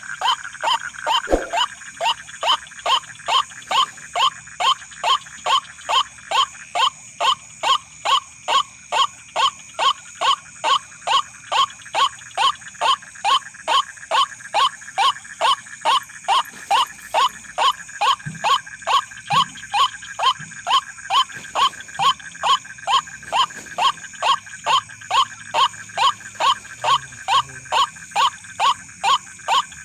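White-breasted waterhen (ruak-ruak) calls: a harsh call repeated evenly about twice a second, without a break, over a steady high-pitched whine.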